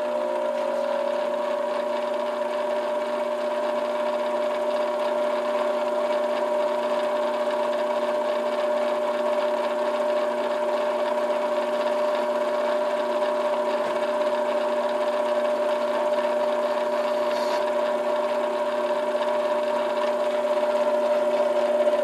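Small benchtop metal lathe running with the spindle turning an acrylic pipe stem: a loud, steady motor and gear whine with several held tones over a hiss. One tone rises right at the start as the chuck comes up to speed, and the sound cuts off at the very end.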